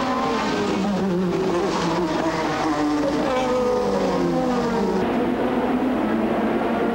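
A pack of turbocharged 1985 Formula One cars racing past at high revs. Several engine notes overlap and slide up and down in pitch as the cars pass and change gear.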